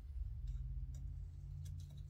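Small metal gun parts, the scope ring halves and screws being handled and set down, giving about four faint clicks and ticks over a low steady hum.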